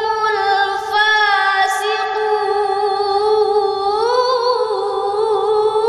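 A young woman chanting Qur'an recitation in the melodic tilawah style, holding one long note with vibrato that swells upward into a wavering ornament about four seconds in.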